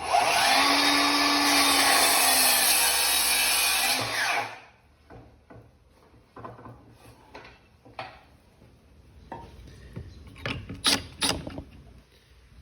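A power tool runs loud and steady while cutting into wood for about four and a half seconds, then stops. Scattered knocks and clicks from handling wood and tools follow.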